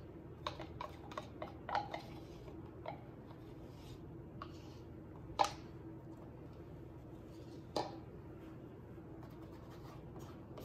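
Small plastic cups and a stir stick clicking and tapping as paint is poured and layered into a plastic cup: a quick run of light taps in the first two seconds, then a sharper click about halfway through and another later. A steady faint hum runs underneath.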